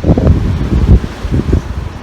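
Strong wind buffeting the microphone: an irregular low rumble that swells and drops with the gusts.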